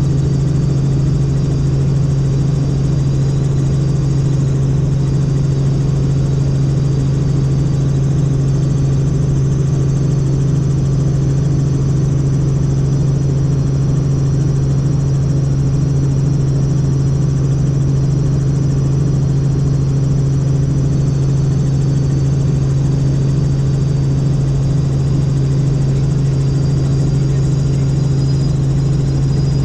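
Helicopter in flight: a loud, constant low drone from rotor and engine, with a thin steady high whine above it.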